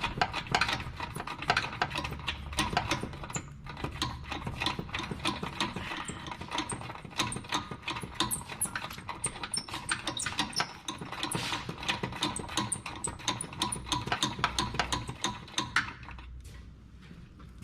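Ratchet wrench clicking in quick, uneven runs as the sway bar bushing bracket bolts are turned, easing off about 16 seconds in.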